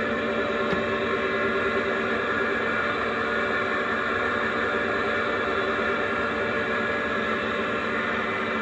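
CVA 1A toolroom lathe running: a steady machine hum with a whine of several held tones, and one light click under a second in.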